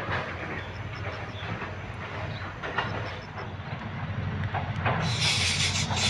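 Leaves and stems rustling and snapping against someone pushing through dense undergrowth, a busy crackle of small brushes and clicks. About five seconds in, the sound switches abruptly to a steady high hiss.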